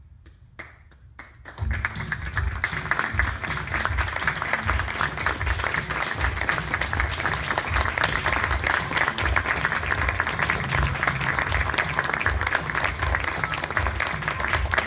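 Theatre audience applauding: a few scattered claps at first, then full, steady applause from about two seconds in.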